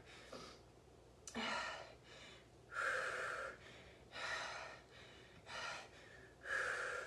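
A woman breathing hard while doing dumbbell lateral raises, out of breath from the jump-squat cardio just before. There are five heavy breaths, about one every second and a half.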